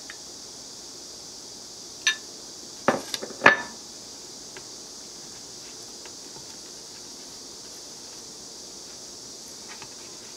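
A metal spoon clinks against a dish, once about two seconds in and then in a quick cluster of knocks about a second later, the last one the loudest and ringing briefly. Faint light scrapes of the spoon spreading sauce on bread follow, over a steady high hiss.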